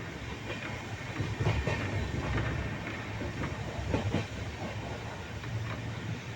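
A train running on rails: a steady low rumble with irregular clacks and knocks of the wheels over rail joints, loudest about a second and a half in and again around four seconds.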